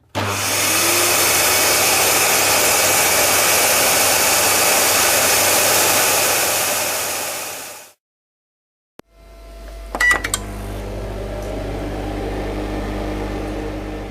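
An electric appliance motor runs with a loud, even rush of air over a low hum, then cuts off after about eight seconds. After a second of silence, a second, quieter appliance starts with a couple of clicks and hums steadily.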